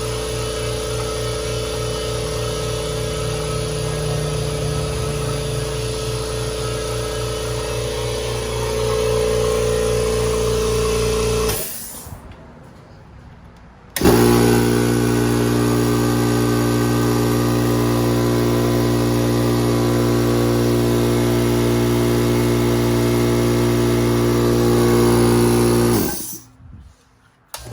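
Two electric air compressors running one after the other: a Kobalt Quiet Tech 26-gallon compressor's steady hum, which stops about eleven seconds in, then after a short pause an old Craftsman 30-gallon oil-free single-stage compressor starting abruptly and running plainly louder until it stops near the end.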